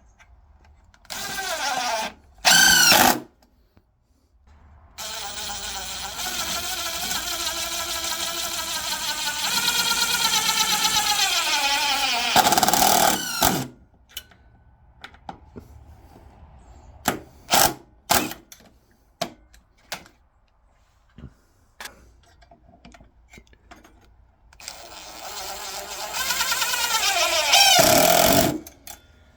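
Power drill motor running in bursts while drilling and driving screws into wood: two short runs, a long run of about eight seconds that winds down at the end, and another run near the end, with light clicks and knocks between.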